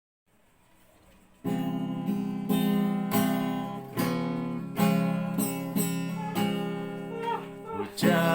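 Acoustic guitar strumming chords as a song's instrumental intro, coming in about a second and a half in after faint hiss, with a fresh strum every half second or so.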